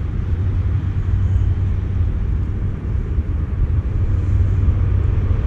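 Steady low rumble of wind buffeting the microphone, rising and falling unevenly.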